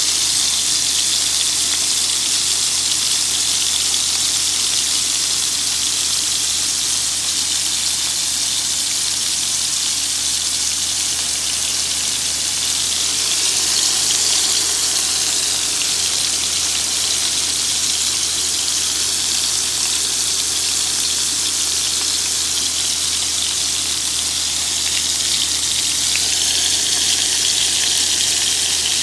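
Scallops sautéing in olive oil in a frying pan: a steady sizzle as they sear golden brown.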